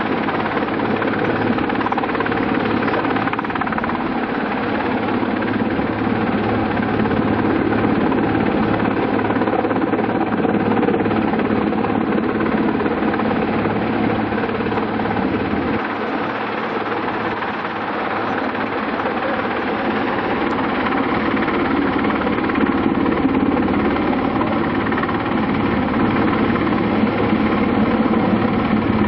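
Helicopter hovering, a steady rotor and engine drone.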